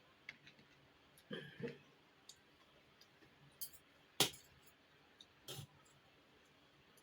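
Close-up eating sounds: a person chewing with scattered mouth clicks and lip smacks, the sharpest about four seconds in.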